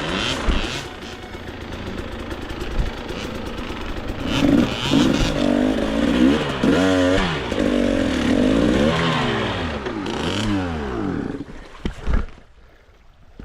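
Dirt bike engine revving up and down over and over, with knocks and clatter from riding over rocks, then stopping about twelve seconds in.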